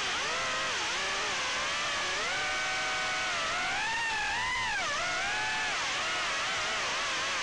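Motor whine of a BetaFPV HX115 3-inch micro FPV quad on a 4S pack, its brushless motors spinning two-blade props. The pitch glides up and down with the throttle, climbing to its highest a little past halfway before falling back.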